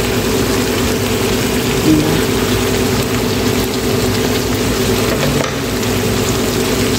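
A pan of pinakbet vegetables and meat sizzling steadily as it cooks, stirred with a wooden spatula. A steady low hum runs underneath.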